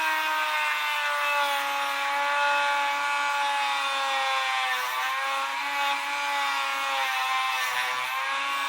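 High-speed rotary tool running steadily while grinding a metal tool tip thin, its whine sagging slightly in pitch about five seconds in and again near the end as it is pressed against the work.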